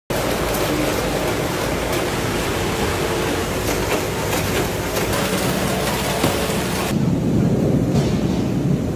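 Factory machinery clatter: dense rattling with many sharp clicks as potato chips drop through a multihead weigher and bag-packing machine, over a faint machine hum. About seven seconds in it changes abruptly to a deeper rumble of potatoes pouring from sacks into a steel bin.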